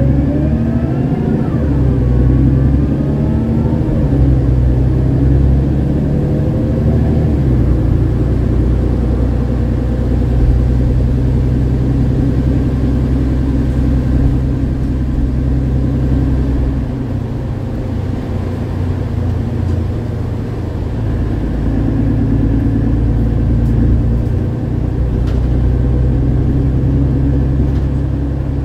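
Mercedes-Benz Citaro G articulated bus with its OM906hLA six-cylinder diesel and ZF Ecomat automatic gearbox, heard from inside the passenger cabin while under way. The engine note rises in pitch over the first few seconds and changes about seven seconds in, then holds as a steady drone.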